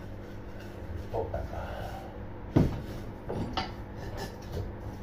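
Hammer knocking: one sharp loud blow about two and a half seconds in, then a few lighter knocks, tapping wedges in under an angle-steel beam set on a brick wall.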